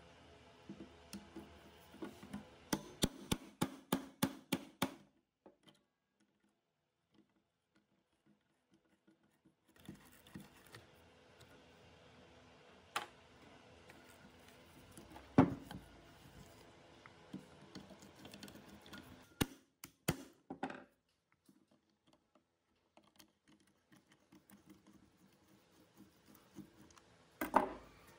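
Sharp metal clicks and knocks from a rusty electric air blower being handled and taken apart by hand: a quick run of clicks for the first few seconds, a pause, then scattered taps with one louder knock, and a few more clicks near the end.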